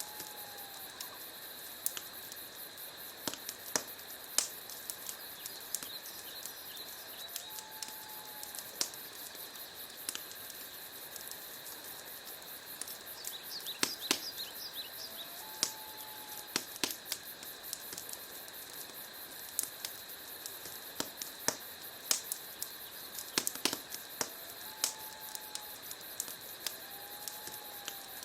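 Wood fire crackling in a fireplace: a steady hiss with irregular sharp pops and snaps throughout. Under it, a faint short whistling tone recurs every few seconds.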